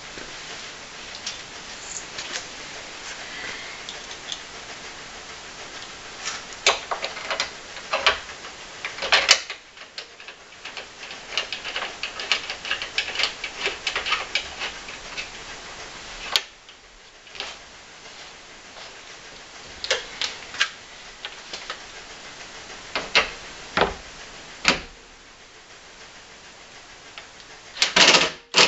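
Bursts of rapid ticking and scattered sharp clicks as the bolt on the horn mounting bracket is worked with hand tools, then a short louder burst near the end as a 19.2-volt cordless drill-driver is put to the bolt.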